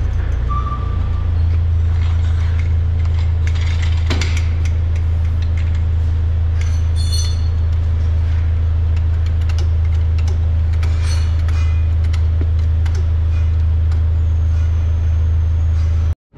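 A loud, steady low machine hum with scattered metal clinks and knocks from hand work on a forklift mast.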